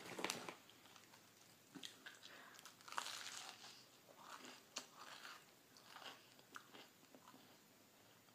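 Faint, irregular bites and chewing of a toasted grilled cheese sandwich, with the strongest bite about three seconds in.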